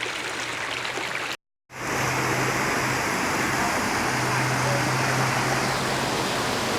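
Steady rushing of water tumbling down a tiered stream waterfall. The sound cuts out completely for a moment about a second and a half in, then comes back slightly louder.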